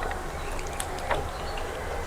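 Soft eating sounds, a few small clicks and smacks of chewing, over a steady low hum.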